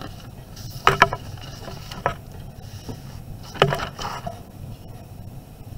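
Sheets of lined notebook paper being handled and swapped on a desk, with three short, sharp rustles or taps: about a second in, at two seconds, and around three and a half seconds.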